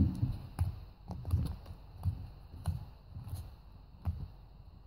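Very sticky homemade slime being worked by fingers in a clear plastic tub, giving faint, irregular sticky clicks and pops with soft low thumps, about one or two a second.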